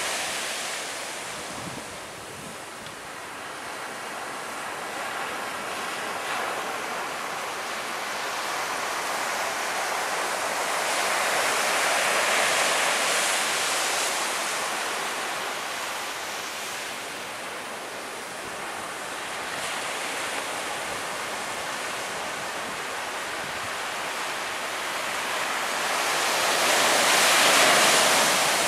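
Surf breaking on a beach in slow swells, with wind on the microphone.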